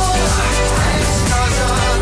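Background music with a steady bass line and a sustained melody.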